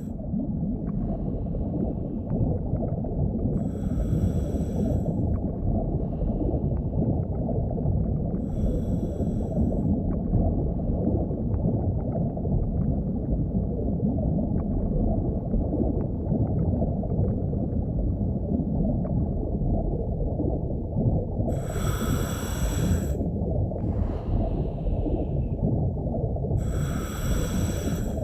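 Underwater ambience sound effect: a steady, muffled low rumbling wash, with four short hissing, breath-like bursts standing out above it.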